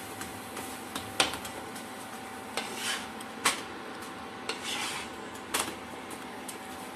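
Wooden spatula scraping and knocking on a nonstick tawa as a paratha is pressed and turned on it. There are sharp knocks about a second in, midway and near the end, with rougher scrapes between them.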